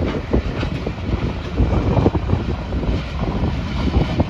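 Freight train boxcars rolling past, steel wheels rumbling and knocking irregularly on the rails, with wind buffeting the microphone.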